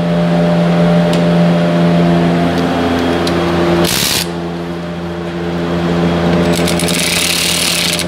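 A steady low machine hum runs throughout, with a short sharp noise about four seconds in. Near the end a cordless electric ratchet whirs for about a second, driving a bolt on the rear brake caliper.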